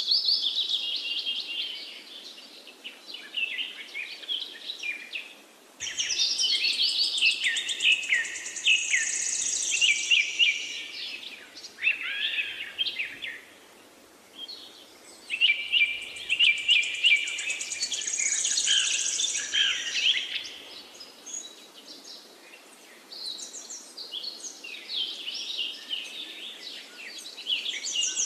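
Birds chirping and singing: quick trills and short falling whistled notes that come in bursts, with brief lulls between them.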